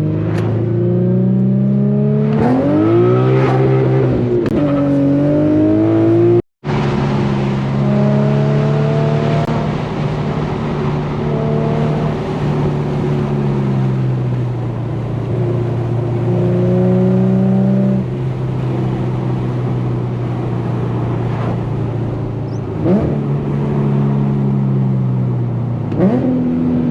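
Infiniti G37's V6 through an ISR Single Exit GT exhaust, pulling through the gears: the pitch climbs and falls back several times as it shifts, then settles to a steady cruise. The sound cuts out completely for a moment about six and a half seconds in, and there are a couple of short sharp knocks near the end.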